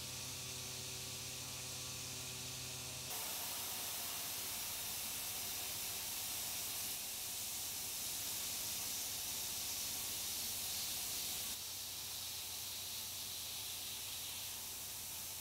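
Steady hiss of a CNC mill's air-blast nozzle blowing on the cut while a tool feeds into an aluminium block. For about the first three seconds a steady machine hum with several tones is heard instead, then it gives way abruptly to the louder hiss.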